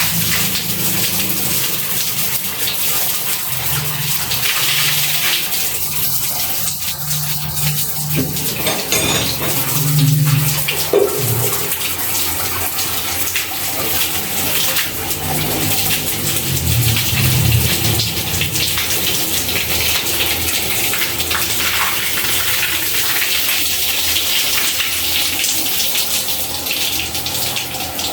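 Water running steadily, as from an open tap or plumbing line.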